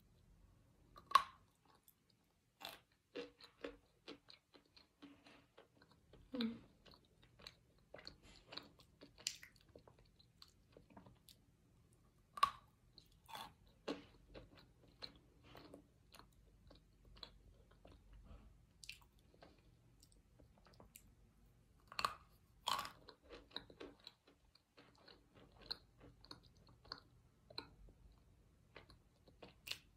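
Mouth chewing and biting pieces of baked cornstarch brick: quiet, irregular crunches and clicks, with a few louder bites spread through. The starch is fairly soft, so the crunches are small.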